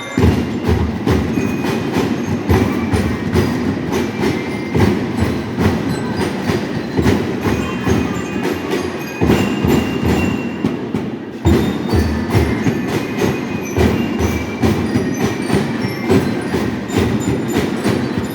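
Marching band drum section playing a steady march beat, about three strikes a second, with high bell-like notes ringing over it.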